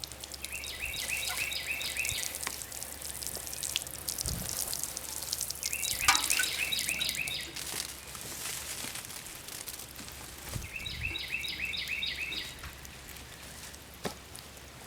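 A songbird singing a quick run of about eight repeated two-part notes, three times roughly five seconds apart, over a light patter of high clicks and hiss.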